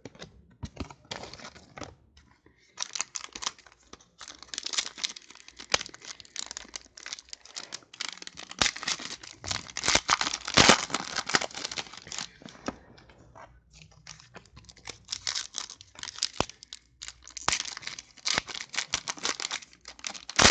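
Football trading-card pack wrappers being torn open and crumpled by hand: an irregular run of tearing and crinkling with short pauses.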